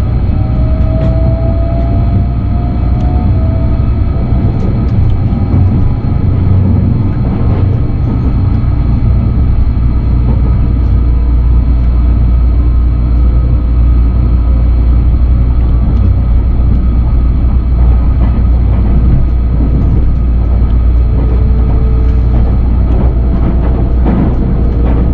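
A JR West 683 series electric express train accelerating after a station departure, heard from inside the passenger car: a steady low rumble of wheels on rail, with the rising whine of the VVVF inverter and traction motors over the first few seconds.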